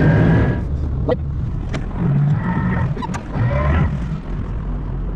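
Heavy diesel machinery running steadily with a low drone, with a few sharp metallic knocks.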